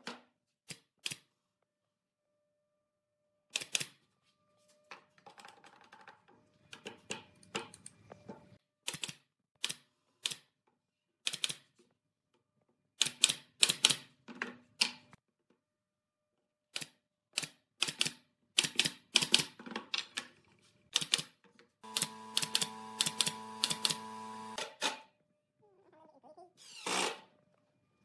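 Nail gun firing nails into pine boards: groups of sharp snaps at irregular spacing, mixed with knocks of boards being handled on a wooden workbench. About three quarters of the way through, a power tool motor whines steadily for about three seconds.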